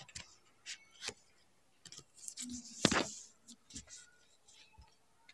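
Lay's potato chips being crunched while chewing: scattered sharp, crisp crackles, with a denser, louder burst of crunching about three seconds in.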